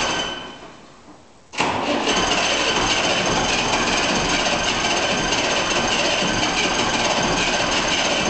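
Ford Major tractor's six-cylinder turbo engine running steadily, still cold shortly after a cold start. Near the beginning the sound sinks away for about a second and a half, then comes back suddenly with a click.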